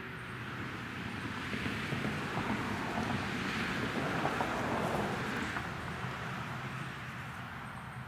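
A vehicle driving past on the road, its tyre and engine noise swelling to a peak about halfway through and then fading away.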